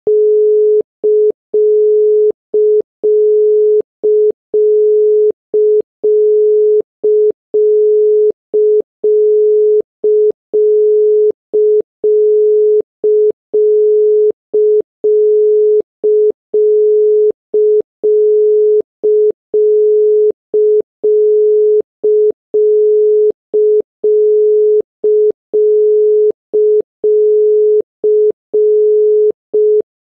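Brazilian telephone number-unobtainable tone, a steady 425 Hz tone that signals the dialled number is not recognised by the network as valid. It repeats a long beep of three quarters of a second and a short quarter-second beep, each followed by a quarter-second pause.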